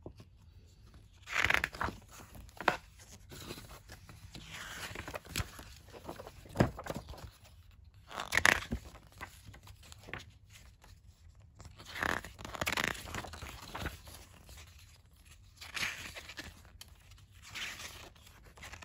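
Pages of a paper instruction booklet being turned and flipped by hand: irregular rustles and flaps of paper, with a few sharper snaps among them.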